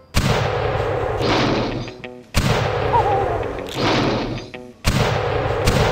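Cannon-fire and explosion sound effects: three sudden blasts about two and a half seconds apart, each dying away over a second or two.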